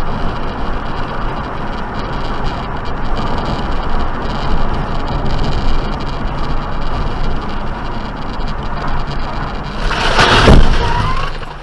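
Steady road and engine noise of a car driving, heard from inside the cabin, then about ten seconds in a sudden loud crash lasting under a second as another car turns across its path: a collision.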